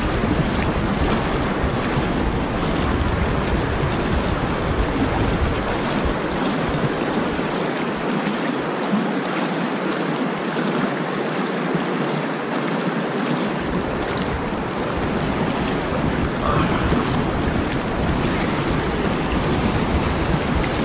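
Steady rush of water pouring over a concrete lake spillway into the pool below, with a low rumble that drops out for several seconds in the middle.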